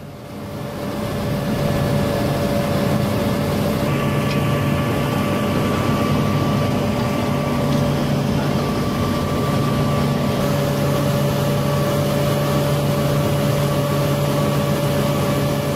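Heavy machinery's diesel engine running steadily under load, with a low hum and a thin steady whine above it. It fades in over the first second or so and gets a little harsher about four seconds in.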